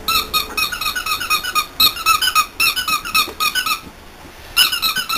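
Squeaky dog toy squeaked over and over as a chihuahua puppy chews it: quick runs of identical high squeaks, about seven a second, with a short pause about four seconds in.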